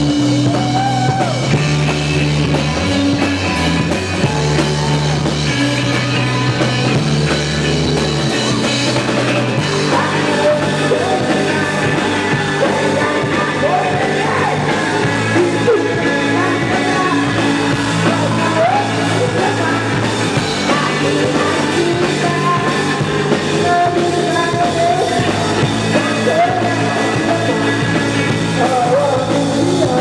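Rock band playing, with electric guitars, drums and a man singing. A heavy bass line is prominent for the first several seconds, then thins out about nine seconds in.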